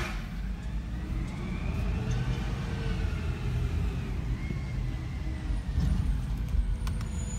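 Compressed-natural-gas automated side-loader garbage truck pulling away from the curb. Its engine runs with a steady low rumble and a whine that rises for about two seconds, then eases off as it drives on.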